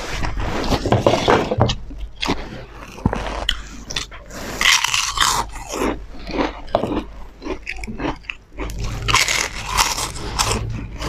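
Close-up chewing and crunching of food with bites into crisp puffed snacks: irregular crunches, thickest in two spells about four and nine seconds in.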